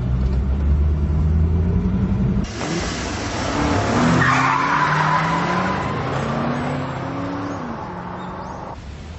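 A car engine revving hard, then from about two and a half seconds in, tyres squealing loudly as the car swerves through a sharp turn, the engine note rising and falling under the squeal. The sound fades near the end.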